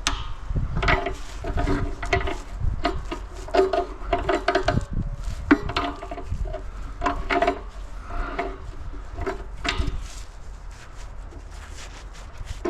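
Irregular metal knocks, clinks and scrapes as tools work small parts off a scrapped air compressor, some strikes ringing briefly.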